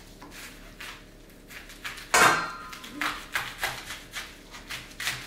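Kitchen knife cutting through a head of cabbage on a cutting board: a series of short crunching, scraping strokes, the loudest about two seconds in.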